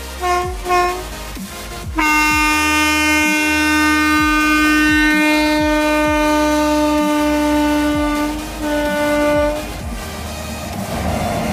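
Horn of a pair of WAP-5 electric locomotives: two short toots, then one long blast of about six seconds and a shorter one after it. Near the end the horn stops and the noise of the locomotives passing close by rises.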